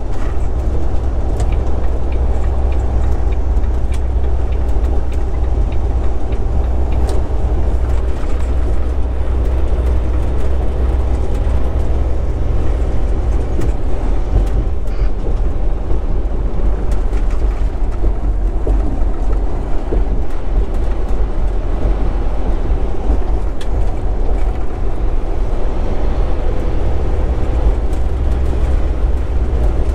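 Steady low rumble of a Volvo 780 semi truck cruising at highway speed, heard from inside the cab: engine and drivetrain drone mixed with tyre noise on concrete pavement.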